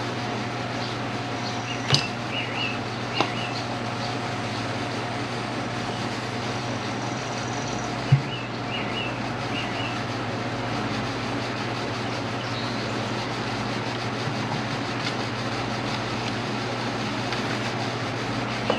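A steady low hum with three sharp knocks, about two, three and eight seconds in, and a few faint bird chirps.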